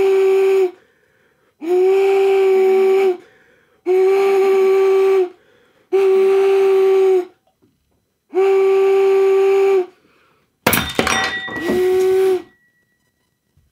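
Giant 3D-printed plastic whistle blown in repeated blasts of about a second and a half, each a steady, loud tone near 382 Hz, tuned to a wine glass's resonant frequency. About ten and a half seconds in, a sharp crack as the wine glass breaks, followed by one more short blast.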